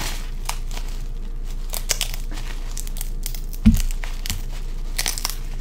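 Crab shell being cracked and pulled apart by hand, giving scattered sharp cracks and crinkling, with one dull thump about two-thirds of the way in.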